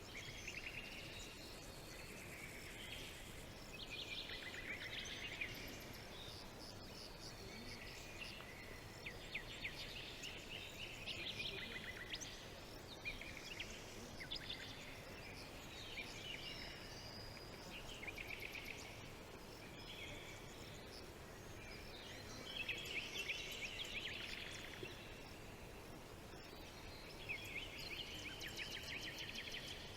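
Several small birds singing and calling, bursts of rapid trills and chirps every few seconds over a faint steady background hiss.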